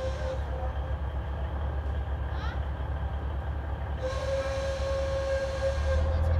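Low, fast-pulsing rumble of a train approaching out of sight. A steady high tone fades out in the first half second and sounds again from about four seconds in.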